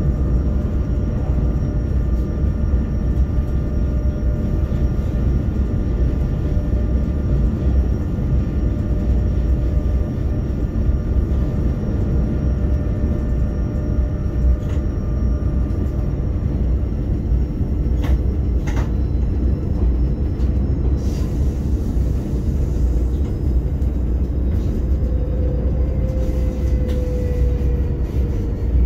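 Domino (RBDe 560) electric multiple unit running, heard from the driver's cab: a steady low rumble of wheels on track under a steady whine from the traction equipment, with a few sharp clicks about 15 and 18 seconds in.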